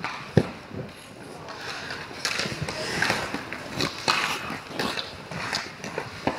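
Ice hockey play: skate blades scraping and carving on the ice, with several sharp knocks; the loudest knock comes about half a second in.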